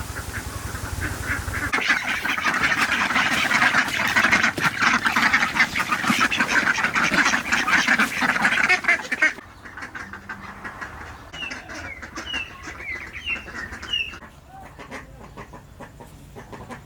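A flock of poultry calling, a dense, loud run of rapid calls for several seconds. It stops abruptly to quieter surroundings with a few short, high chirps.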